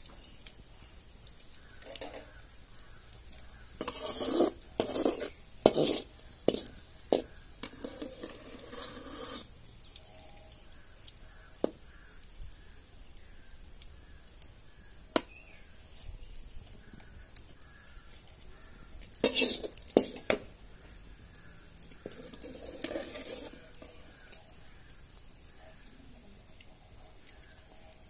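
Long perforated metal ladle scraping around the inside of an aluminium pot of frying oil as fried onions are lifted out, in several bursts of scraping with a few sharp single metal taps between them.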